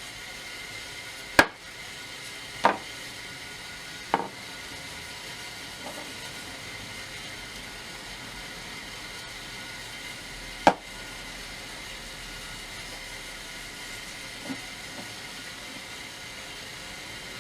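Sharp knocks of the hatchet and staining things being handled and set down on a workbench. Four loud knocks in the first eleven seconds and a couple of faint ones, over a steady background hiss.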